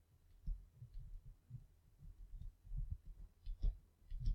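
Faint, irregular soft low thumps and a few light clicks of a pen tapping and dragging on a graphics tablet.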